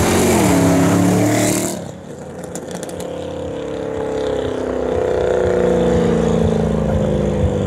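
Chevrolet Camaro ZL1's supercharged 6.2-litre V8 driving past under throttle. About two seconds in the sound cuts abruptly, and the engine is then heard pulling away, growing louder with its pitch slowly rising.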